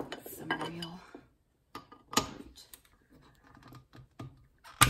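Sharp metal clinks and knocks of a screwdriver working at a wedged motor screw on a vintage Kenmore sewing machine. There are a handful of separate clinks with short gaps between them, the loudest near the end.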